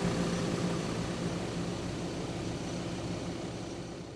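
A vehicle engine running with a steady low hum, gradually fading out.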